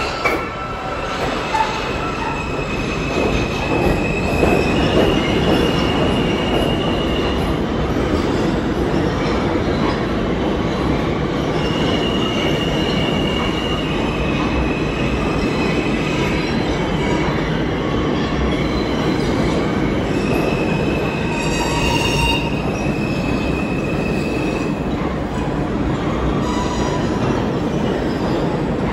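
New York City Subway R160 cars moving through the station, with a steady rumble of wheels on rail. High squealing tones come and go over the rumble several times.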